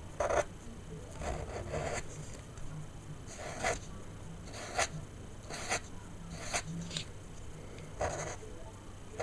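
Sharpie marker drawing on paper: about eight short, separate strokes at irregular intervals.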